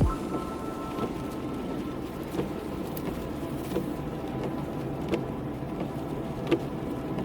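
A car running, a steady low hum with a faint steady whine and a few light clicks.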